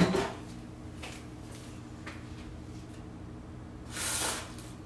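Kitchen room tone: a steady low hum, opened by a single sharp knock, with a few faint ticks and a short rustling hiss about four seconds in.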